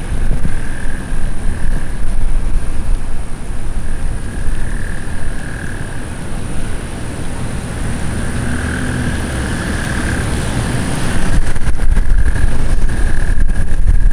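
A chorus of frogs calling in waves that swell and fade every few seconds, under a loud, gusting low rumble of wind on the microphone. A faint steady high tone runs through.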